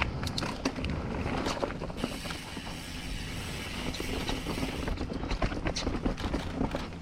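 Mountain bike ridden along a dirt trail: tyres rolling over the ground with a low rumble, and the bike rattling and knocking over bumps in a string of sharp clicks.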